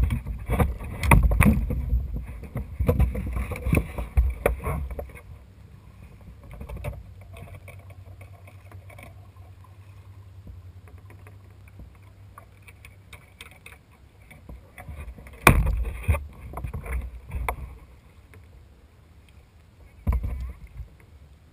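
Kayak paddling on calm water: the paddle blades splash and drip, with knocks and rubbing on the plastic hull. These are busiest in the first five seconds, quieter after, with two sharp knocks later on.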